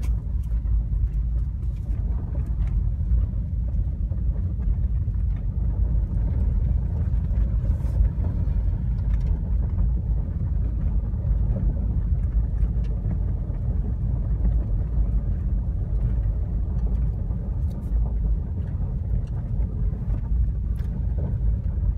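Car driving down a gravel road, heard from inside the cabin: a steady low rumble of tyres and engine, with a few faint clicks scattered through.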